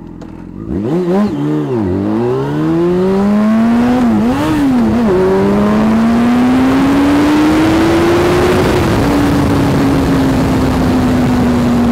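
Yamaha FZ6 Fazer's inline-four engine, fitted with a LeoVince aftermarket exhaust, idling and then pulling away hard, the revs climbing and dropping as it shifts up through the gears. It settles to a steady cruise with wind rushing over the helmet microphone.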